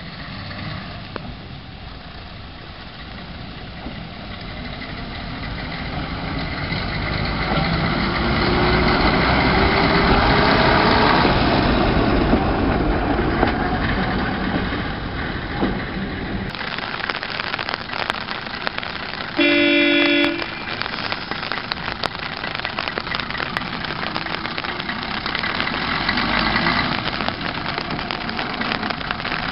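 Diesel engine of a Nanbu Jukan Railway KiHa 10 rail bus running and rising in pitch as the rail bus pulls away. About twenty seconds in, one short horn toot of about a second. After the toot, the engine runs on as the rail bus passes.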